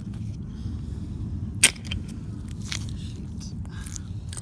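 Steel chain breaker being worked on a motorcycle roller chain: one sharp metallic click about a second and a half in, then a few fainter clicks, over a steady low rumble.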